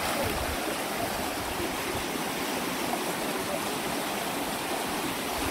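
Fast-flowing, muddy river current rushing and churning over rocks in a steady rush of water.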